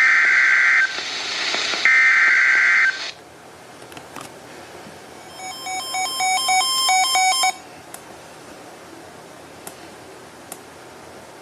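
NOAA Weather Radio EAS/SAME header: the end of one shrill warbling data burst and a second full burst, ending about 3 s in, the alert's coded header. Then steady radio hiss, broken from about 5 to 7.5 s by a quick run of electronic beeps at changing pitches, like touch-tone dialing.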